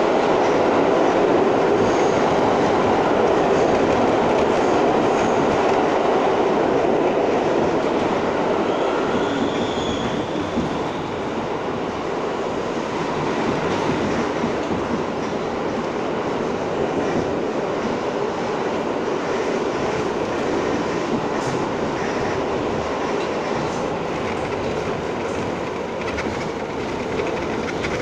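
R62 subway car running at speed through a tunnel, heard from inside the car: a steady rumble of wheels on rail with clicks over rail joints. A brief faint wheel squeal comes about ten seconds in, and the rumble eases slightly after it.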